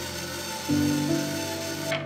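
Background music with sustained low notes, over the whir of an Ozito cordless drill driving a screw through a drawer front; the drill sound cuts off just before the end.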